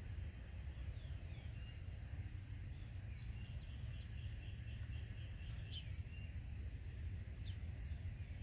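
Outdoor ambience: a steady low rumble with faint, distant bird calls over it, including a rising whistle and then a quick run of short repeated notes, about five a second, in the middle.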